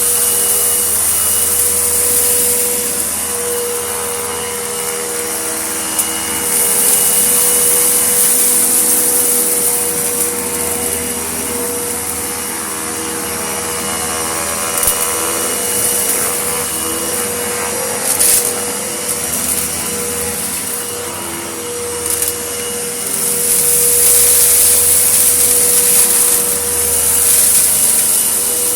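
A vacuum cleaner running on a gritty floor, its motor giving a steady whine under a high rushing hiss. The sound swells louder and softer as it is pushed back and forth, with a few sharp clicks and rattles of grit being sucked up.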